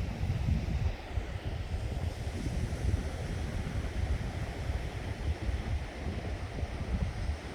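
Sea surf washing onto the beach, a steady hiss, under a gusty low rumble of wind buffeting the microphone.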